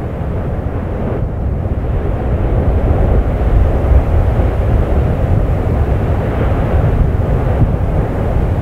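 Deep, steady roar of an erupting volcanic crater, with lava fountaining and churning, swelling slightly a few seconds in.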